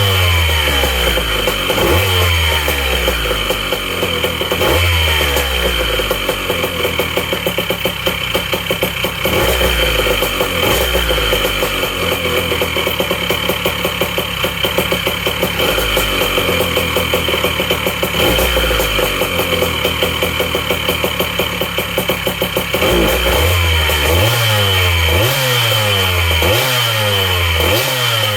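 Rebuilt Smallstate engine running on its first start after the rebuild, its speed rising and falling in repeated revs, then running steadier, then blipped quickly over and over near the end. Its ignition timing is still far off.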